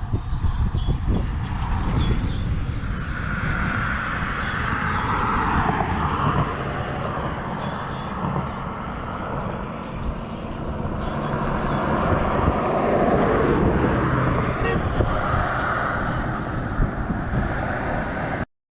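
Road vehicle driving: a steady low engine rumble with road and wind noise that swells and fades, cutting off suddenly near the end.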